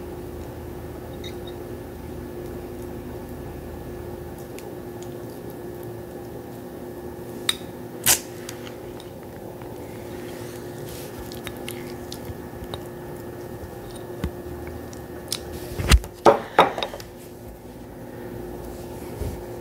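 A metal spoon stirring thick turmeric paste in a small bowl, with a couple of sharp clinks of the spoon against the bowl near the middle and a few more later on, over a steady low hum.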